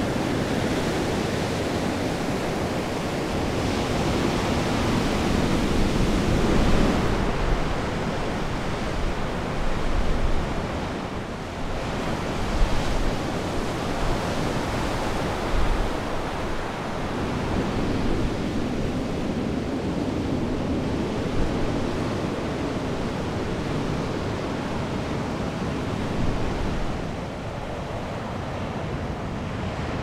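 Steady wind and ocean surf noise that swells and eases every few seconds, with a little wind rumble on the microphone.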